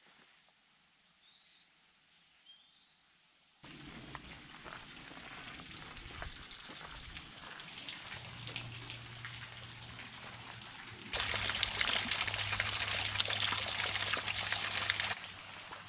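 Near quiet for the first few seconds, then thin streams of water trickling and dripping down a mossy rock face, with many small drips. About eleven seconds in it becomes a louder, steady splashing as a hand is held in the falling water, and drops back after about four seconds.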